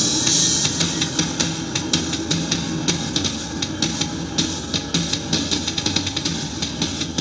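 Drum-led rock music played back through a JBL Bluetooth speaker. A cymbal wash fills the first second, then rapid, evenly spaced drum strokes continue over a bass line.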